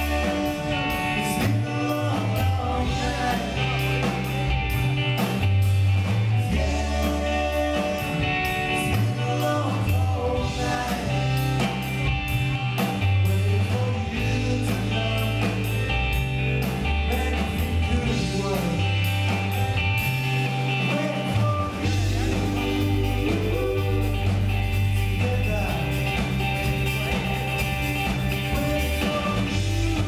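Live rock band playing a song on stage: electric guitars, bass and drum kit with cymbals, and a sung lead vocal. The bass line moves from note to note about once a second.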